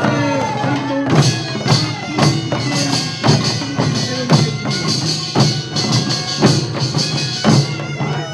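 Korean farmers' music (nongak): a percussion band plays strong beats about once a second with bright metallic clatter, under a wavering melody line.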